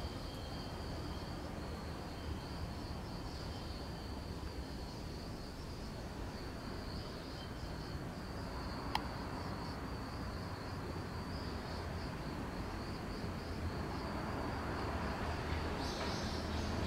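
Insects trilling steadily at a high pitch, with a second, fainter trill slightly lower in pitch during the first half, over a low background rumble. A single sharp click about nine seconds in.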